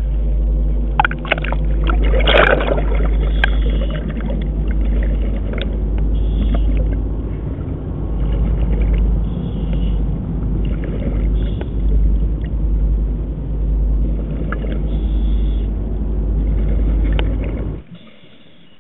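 A loud, steady low rumble with a droning hum, cutting off abruptly near the end.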